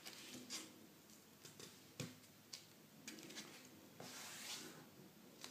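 Faint handling of a sheet of paper being folded by hand on a wooden table: a few light taps and creasing sounds, the sharpest about two seconds in, and a brief rustle of the paper about four seconds in.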